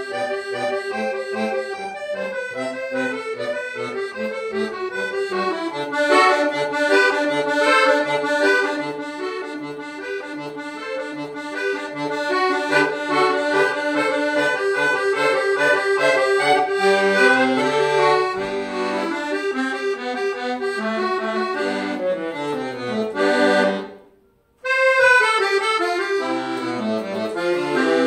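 Piano accordion played solo: a quick treble melody over a steady beat of short bass notes. The playing stops dead for about half a second roughly three-quarters of the way through, then picks up again.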